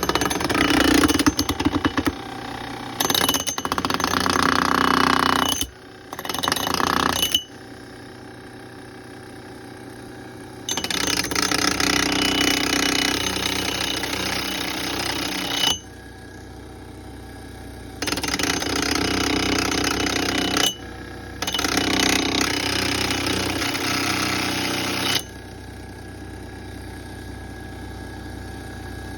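An axe being sharpened on an electric grinder: the motor runs steadily throughout, and the grinding of the axe steel against the abrasive comes in about six loud passes of one to five seconds each, starting and stopping abruptly.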